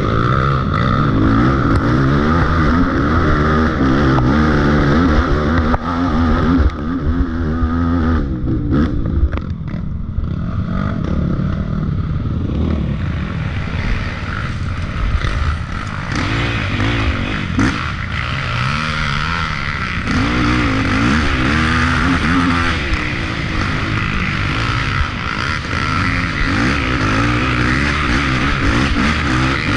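Dirt bike engine revving up and down as it is ridden hard over rough trail. The throttle eases off for a few seconds about a third of the way in, then the engine pulls hard again.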